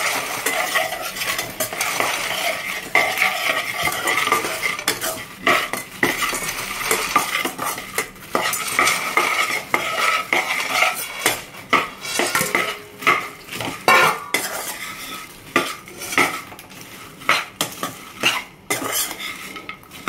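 A steel spoon stirring puffed lotus seeds (phool makhana) through hot jaggery caramel in a non-stick kadai, scraping and clinking against the pan, with a light sizzle. The strokes grow more separate and sharper in the second half.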